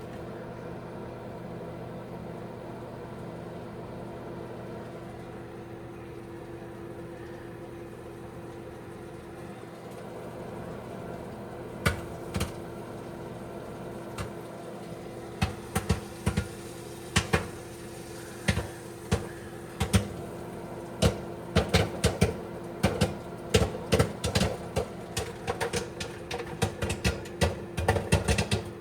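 Microwave oven running with a steady hum while popcorn pops inside it: the first single pops come about twelve seconds in, then they quicken into frequent popping, several a second near the end.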